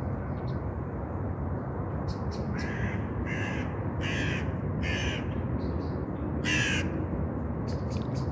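A crow cawing: four calls in an even series, about one every three quarters of a second, then a fifth, louder call a little over a second later, over a steady low background rumble.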